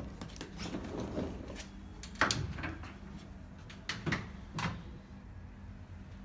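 Wooden louvered wardrobe doors being opened and handled: a few short knocks and clatters, the loudest about two seconds in.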